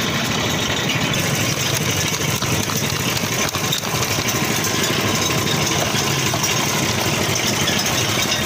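Sugarcane juice machine running steadily, its motor driving the crushing rollers as cane is pressed.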